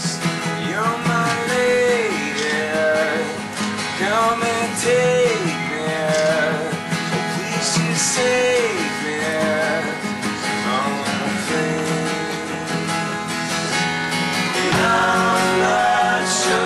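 Live acoustic band: strummed acoustic guitars, one of them a resonator guitar, with male voices singing over them.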